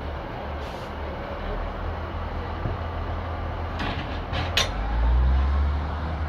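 Two Class 156 Super Sprinter diesel units coupling: a steady low diesel rumble as they close up, then a few sharp metallic clanks as the front couplers meet, a little after halfway. The low engine rumble then swells for about a second.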